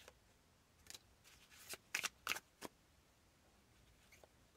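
Tarot cards being drawn from a hand-held deck and laid onto a table: a few brief, faint card flicks and slides, clustered in the middle with one more near the end.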